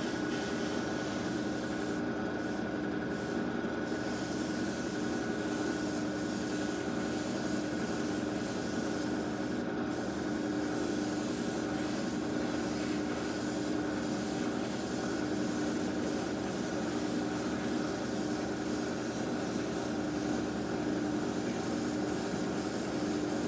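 Fan-cap airbrush hissing steadily as it sprays Mr Hobby Surfacer 1000 primer at about 20 psi, the air cutting out for a moment a few times a few seconds in and once around ten seconds in. Underneath runs a steady motor hum.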